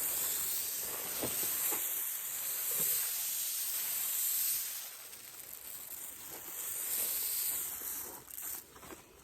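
Cicadas droning in a steady high-pitched buzz that swells, eases, swells again and then breaks off abruptly near the end, with a few faint knocks underneath.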